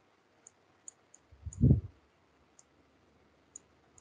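Computer mouse clicking a handful of times, spread out, as nodes are selected and connected in the compositing software. A loud, low, muffled thump comes about one and a half seconds in.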